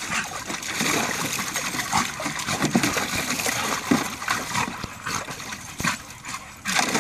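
Water splashing and sloshing in a plastic kiddie pool as dogs play-wrestle in it, with a few short vocal sounds from the dogs.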